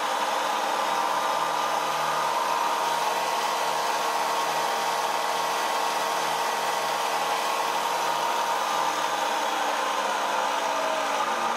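Variable-speed benchtop drill press running free with no load, a steady motor and belt-drive whir with a constant hum.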